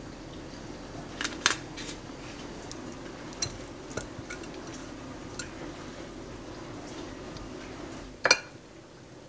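A silicone basting brush spreading oil in glass containers, its handle and the containers clicking and tapping against the glass at irregular moments. The loudest click comes about eight seconds in. A steady low hum runs underneath and stops at that moment.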